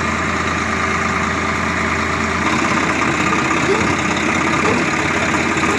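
Swaraj 855 FE tractor's three-cylinder diesel engine running close by. Its low drone changes and becomes less even about halfway through.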